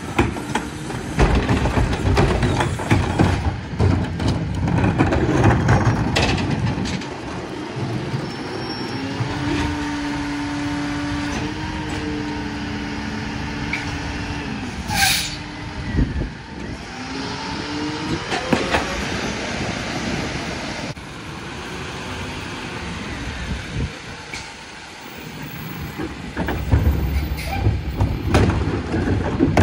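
Freightliner Econic SD McNeilus rear-loader garbage truck at work. Carts are dumped into the rear hopper with loud clattering and banging in the first several seconds and again near the end. In between, the engine revs with a whine that rises and falls, and there is one short air-brake hiss around the middle.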